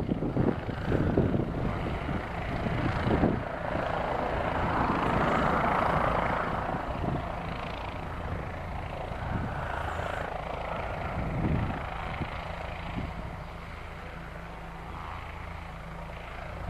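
Tour helicopter running on the ground with its main rotor turning. The sound swells a few seconds in and eases off toward the end.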